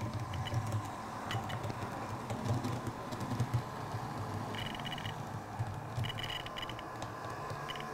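Two OO gauge model trains running on DCC-powered track: a steady low motor hum with light clicking of wheels on the rails. Several quick runs of short high-pitched chirps are heard, about halfway through and again near the end.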